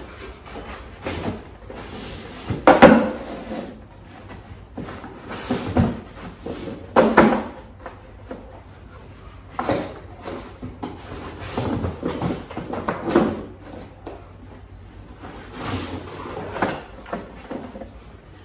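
Cardboard boxes being lifted out of a shipping box and set down on a table: irregular knocks, scrapes and rustling of cardboard, the loudest knock about three seconds in.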